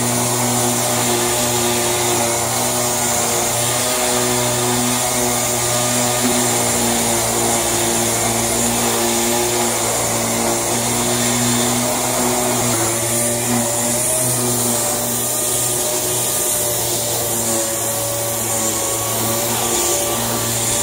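Power sander running steadily as it sands body filler on a car body panel, with a constant motor hum and hiss.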